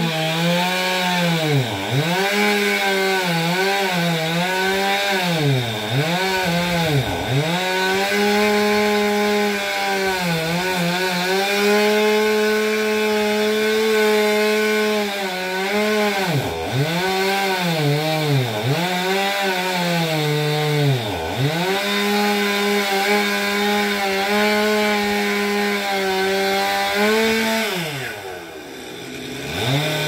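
Two-stroke chainsaw running at high revs while cutting tree wood. Its pitch dips sharply and recovers again and again, with stretches of several seconds held steady, then sinks lower and quieter near the end before revving back up.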